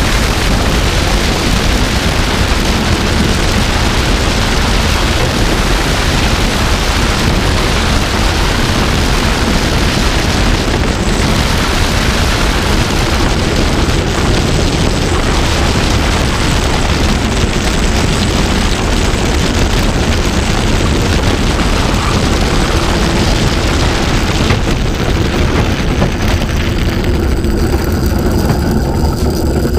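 A bob sliding at speed down an ice bobsleigh track: a loud, continuous rushing and rumbling of the sled on the ice, with wind against the sled-mounted camera. The hiss thins in the last few seconds as the sled slows on the finishing straight.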